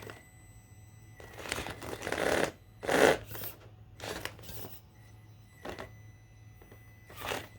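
Traxxas TRX4M RC crawler on Mickey Thompson Baja Pro XS tires climbing over rocks: irregular bursts of tires scrabbling and scraping on rock, the loudest about three seconds in, over a faint steady hum.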